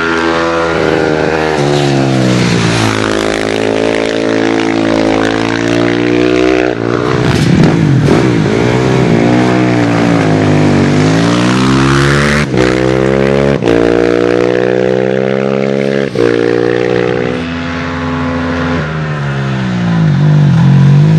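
Racing motorcycle engines under hard acceleration up a hill climb course. The revs climb and drop again and again, with a few abrupt breaks.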